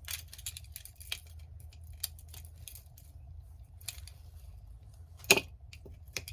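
Small craft parts and metal keychain hardware being handled, giving scattered light clicks and taps, with one sharp louder click about five seconds in.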